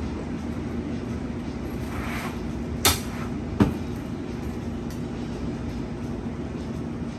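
Steady hum of kitchen equipment with a constant low tone, and two sharp clacks about three and three and a half seconds in as a sandwich is assembled with tongs at a stainless prep counter.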